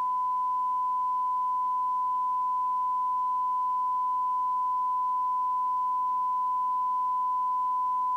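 Audioline PT340 FM CB radio's loudspeaker reproducing the signal generator's test tone: a steady, unchanging pure tone. It is the demodulated audio of a strong S9 (100 microvolt) test signal being received during receiver alignment.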